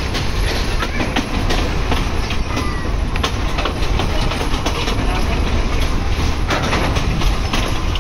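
Moving train carriage: a steady low rumble with scattered clicks and rattles.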